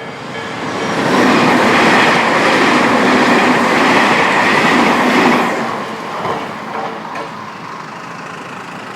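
A Tobu Nikko Line train passing over the level crossing, its wheels clattering on the rails. It is loud for about four seconds, then fades. At the very start the crossing's warning signal is still sounding, a tone repeating about three times a second.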